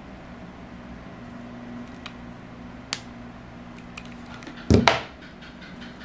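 A plastic hot glue gun set down on a wooden tabletop: a short double knock near the end, the loudest sound here. There is a single light click a little earlier, over a steady low hum.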